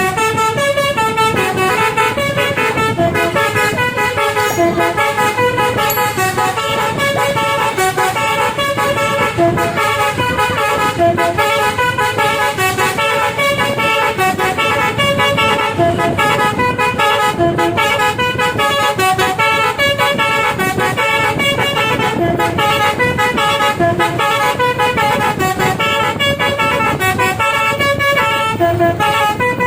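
Bus telolet musical air horn playing a fast melody of short notes that changes pitch every fraction of a second, without a break, over a low steady engine hum.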